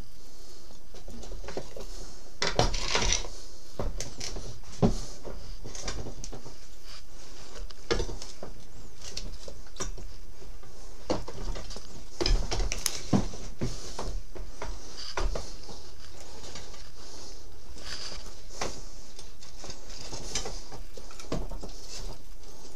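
Scattered light metal clinks and knocks as a motorcycle rear wheel and its chain are worked into place, heaviest about three seconds in and again about twelve seconds in, over a steady background hiss.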